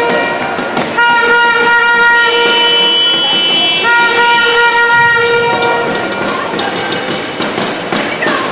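Air horns blown in several long, steady blasts, a second higher-pitched horn sounding over them about two seconds in, above crowd noise. The horns stop about six seconds in and give way to a run of short sharp beats.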